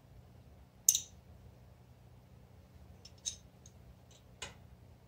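Light metallic clinks of small hand wrenches on the rocker arm adjuster of a BMW airhead boxer engine as the valve clearance is set. There are three sharp clinks, the loudest about a second in, then others a little past three and a little after four seconds, with fainter ticks between.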